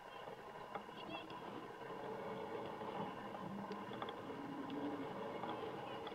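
Soccer-match ambience: a steady background of distant voices from players and spectators calling and chattering, with a few soft knocks.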